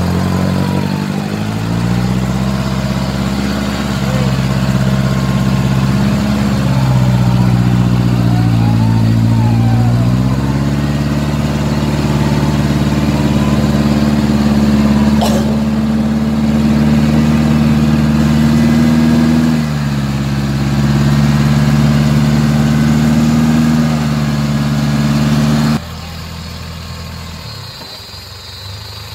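Toyota Land Cruiser hardtop engine running at raised revs under load as it winches and climbs out of deep mud, its pitch rising and falling slowly in long steady stretches. The sound drops sharply near the end.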